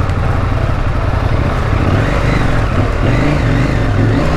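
KTM motorcycle engine running under way on a rough track, its note shifting slightly about halfway through.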